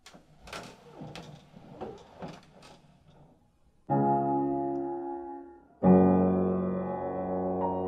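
Piano chords: one struck about four seconds in and left to ring and fade, then a louder chord about two seconds later, with single melody notes starting above it near the end. Before the playing, a few faint soft noises.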